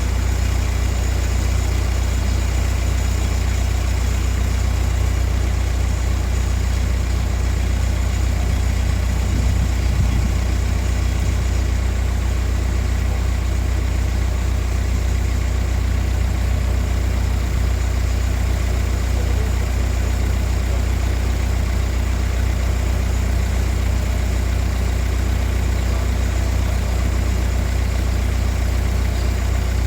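A steady, loud, low mechanical hum, like a motor or engine running, with a faint even pulsing and no change throughout.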